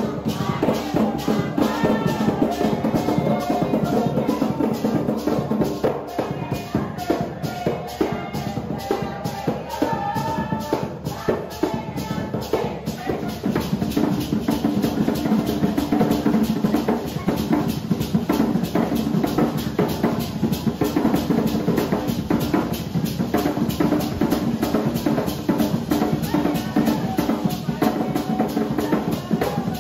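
Two Garifuna wooden hand drums, a lead and a bass, played fast with bare hands in a dense, driving rhythm. Maracas shake along and voices sing over the drums, most clearly in the first half.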